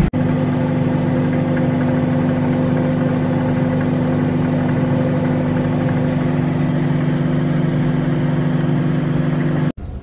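Old countertop microwave oven running, a steady loud hum that cuts off suddenly near the end.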